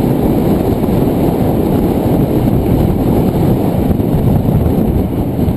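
Loud, steady wind rushing over an action camera's microphone as it rides along on a moving mountain bike, mixed with the rolling noise of tyres on a concrete path.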